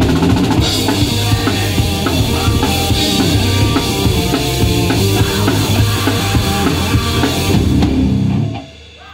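Live metal band playing: pounding drum kit with bass drum and snare, under distorted electric guitar and bass guitar. The song stops suddenly about eight and a half seconds in.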